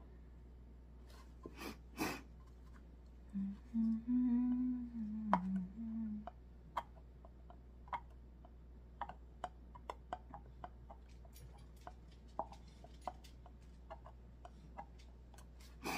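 An old knife blade scratching paint and Mod Podge off the centre of a painted metal jar lid in short, irregular scrapes and clicks. A woman hums a few low notes from about three to six seconds in.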